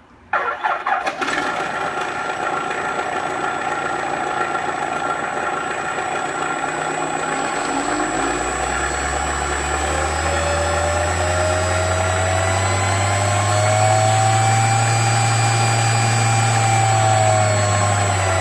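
Simulated light-aircraft engine from a sound-effect system on a HobbyKing J3 Cub RC model plane: it starts with a few loud coughs and settles into a steady run. Its deep note builds from about halfway through, rising and falling in revs, over a steady high whine.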